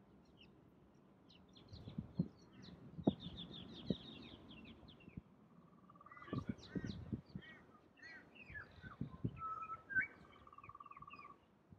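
Pied butcherbird calling: short whistled chirps and slurred notes, with a quick run of high notes about three seconds in and a low warbling trill about halfway and again near the end. Scattered low thumps sound underneath.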